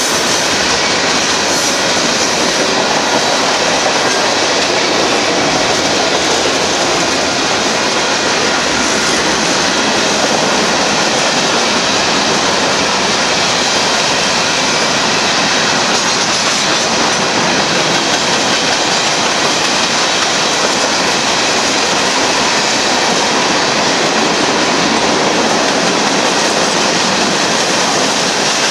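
Cars of a passing manifest freight train, covered hoppers and tank cars, rolling by close at hand: a steady, loud noise of steel wheels running on the rails.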